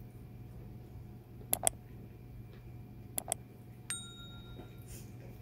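Subscribe-button animation sound effect: two quick double clicks about a second and a half apart, then a short bell ding that rings out briefly, over a low steady room hum.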